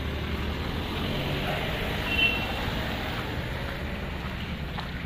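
Slow road traffic on a wet road: car engines running and tyres hissing through standing water, with a brief high-pitched tone about two seconds in.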